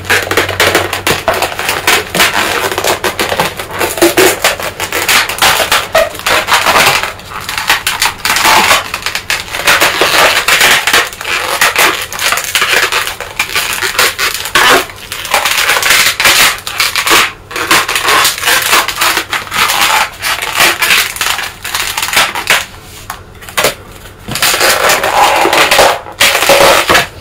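Inflated latex modelling balloons being twisted and squeezed together by hand: continuous loud rubbery squeaking and crackling as the red and black balloons rub against each other.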